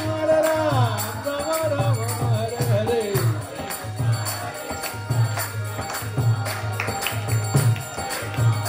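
Devotional kirtan music: a man singing a long held note that winds downward in pitch over the first few seconds, over harmonium. A two-headed mridanga drum keeps a steady beat, with clapping on the beat.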